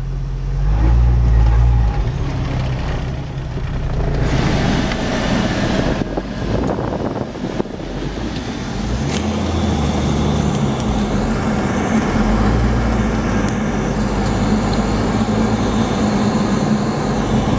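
Engine and drivetrain of an off-road vehicle heard from inside its cab as it drives a rough dirt trail: a loud, low rumble that rises and falls in steps with the throttle, with a few sharp knocks from bumps along the way.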